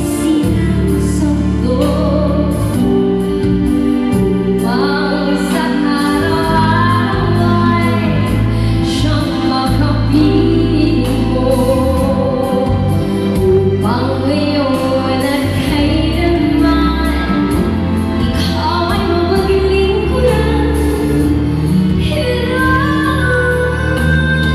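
Female singer performing a slow ballad live into a handheld microphone, long held notes over sustained low accompaniment, heard from the audience through the hall's loudspeakers.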